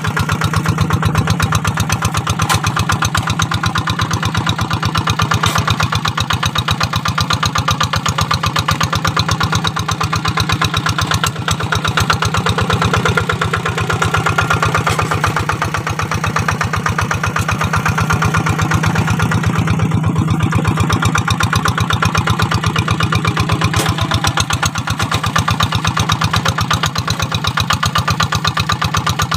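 Kubota RD 85 single-cylinder diesel engine of a Quick G1000 Boxer two-wheel hand tractor, running steadily with rapid, even firing pulses while it pulls a moldboard plough through dry field soil.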